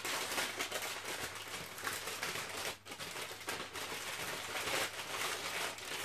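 Paper packing wrapped around a heat pack rustling and crinkling as it is handled and unwrapped by hand, with a brief pause a little under three seconds in.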